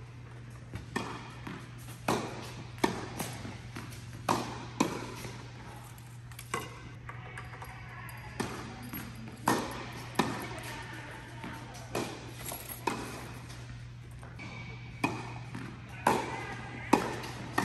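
Tennis balls struck by rackets in a fast volley exchange: sharp pops, irregular at about one a second, each ringing briefly in an indoor tennis hall. A steady low hum runs underneath.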